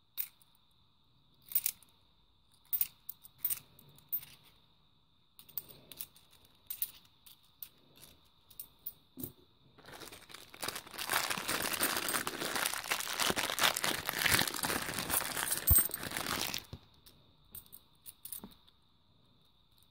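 50p coins clicking against one another as they are handled. About ten seconds in, a plastic coin bag crinkles and tears open for roughly six seconds, the loudest sound, followed by a few more coin clicks.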